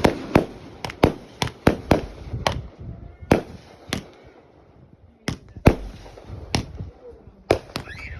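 Fireworks going off in a rapid, irregular string of about fifteen sharp bangs, with a short gap of about a second around halfway.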